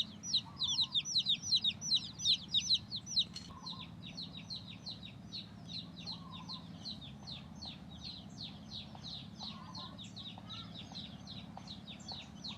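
Chickens: a rapid run of high, short, falling peeps, about four or five a second, loud for the first three seconds and softer after, with a few faint low clucks in between.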